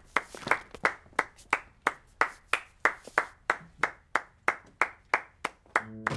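Hands clapping in a slow, even rhythm, about three claps a second.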